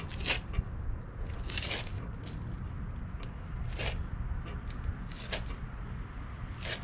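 Gloved hand wiping a rag of acid hull cleaner along a fiberglass boat hull: a few brief wiping strokes, about one a second or so, over a steady low hum.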